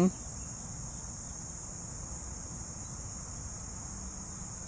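Steady high-pitched chorus of insects, an unbroken drone with no pauses.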